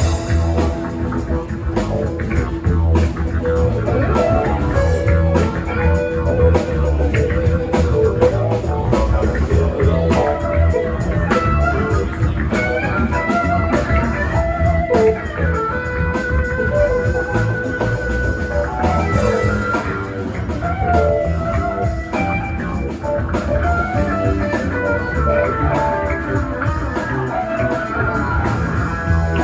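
A live rock band playing an instrumental passage: guitar melody lines wander over bass and drum kit, with no vocals.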